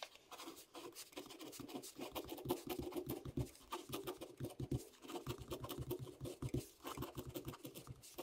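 Ballpoint pen scratching on paper as it writes out words in quick, irregular short strokes.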